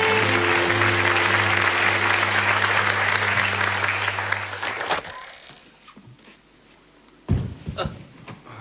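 Audience applause over the last held chord of a sitcom theme song, fading and cutting off about five seconds in. Then a quiet room, with a single sharp thump near the end and a few small knocks.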